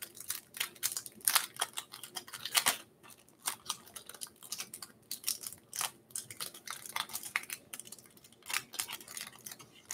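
Thin plastic card sleeves and cellophane wrapping crinkling and crackling as trading cards are handled and a sealed wrapper is worked open: a string of short, irregular crackles and clicks.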